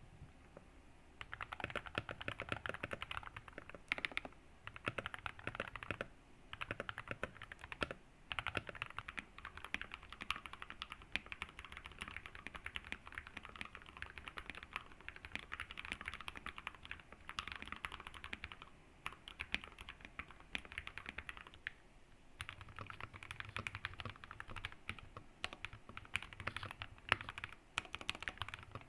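Continuous fast typing on custom mechanical keyboards with lubed linear switches and foam-dampened cases, a dense run of key clacks with short pauses. About 22 seconds in the typing briefly stops and resumes with a deeper sound.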